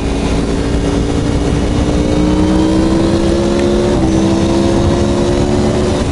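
Aprilia Tuono V4 1100 Factory's V4 engine pulling hard through an Arrow exhaust, its pitch climbing steadily, dropping briefly with an upshift about four seconds in and again near the end. Heavy wind rush underneath.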